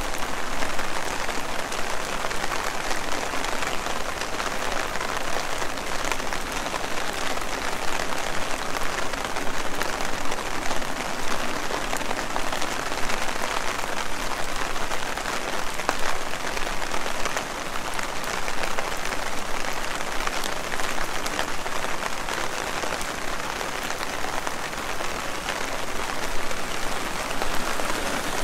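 Heavy rain falling, a steady dense hiss of drops with many fine individual hits.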